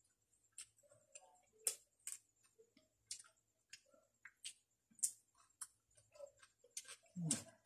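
Close-up mouth sounds of people chewing boiled leafy greens: irregular small wet clicks and smacks. A short low vocal hum comes near the end.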